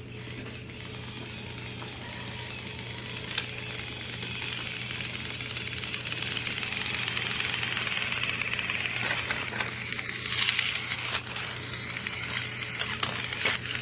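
Battery-powered toy trains running on plastic track: the steady whir and rattle of small electric motors and gears, growing slightly louder, with a few sharp clicks along the way.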